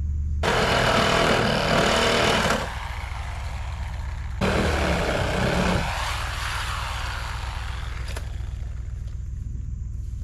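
Reciprocating saw (Sawzall) cutting through the wooden framing of a deer blind in two loud bursts, the first about two seconds long and the second shorter, trailing off. A steady low engine hum runs underneath.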